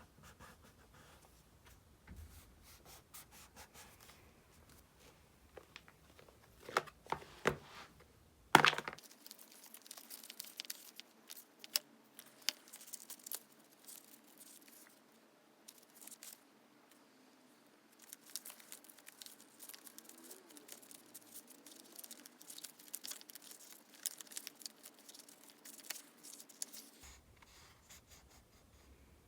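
Stickers being peeled off their backing sheet and pressed onto a diary page: a few scratchy peels about seven to nine seconds in, the loudest near nine seconds, then a run of small crackling and rustling sounds.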